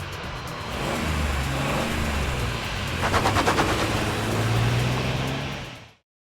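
A vehicle engine running steadily, with a rapid rattle of clicks for under a second about three seconds in, then fading out to silence near the end.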